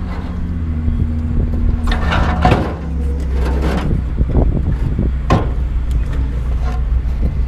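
An engine idling steadily, with several sharp metal clanks and knocks from scrap metal being handled and unloaded.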